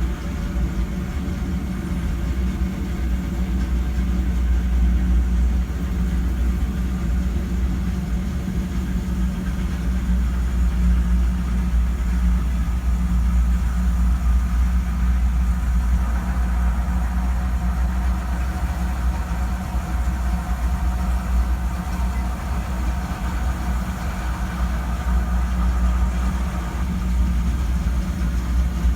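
Engine of a large farm machine running steadily at an even speed, a deep continuous drone.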